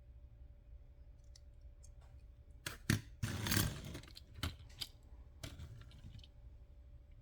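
Small toy cars being handled: a scatter of sharp clicks and light knocks, with a brief rustle between about three and four seconds in.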